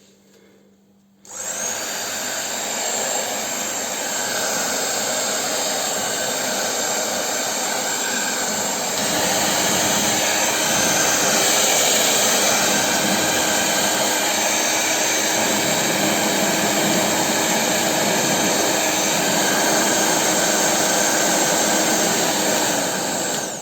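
RZTK HD 232 hair dryer with an AC motor switched on and blowing: a steady whir of motor and rushing air with a thin high whine. It starts suddenly about a second in, gets louder about nine seconds in, and cuts off just before the end.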